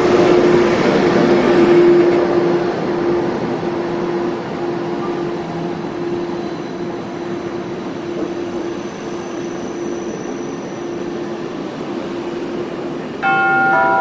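An ÖBB electric locomotive hauling Nightjet coaches runs past along the platform. It is loudest as the locomotive passes at the start, then the coaches roll by steadily with a constant hum. About a second before the end, a sudden set of ringing tones sets in and steps down in pitch.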